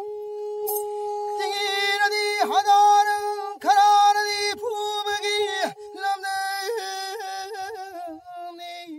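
A man singing a Manipuri folk melody with swooping slides, over the steady drone of a pena, the Manipuri single-string bowed fiddle; the singing is strongest in the first two-thirds and gives way to short ornamented notes near the end.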